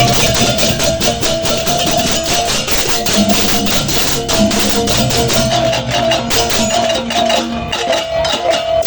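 Balinese gamelan percussion music: rapid, dense metallic strokes over sustained ringing pitched tones and low drum tones.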